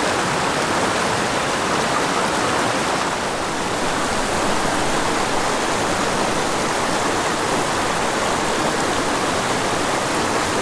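Steady rush of a small, fast creek running over rocks in shallow riffles and little cascades.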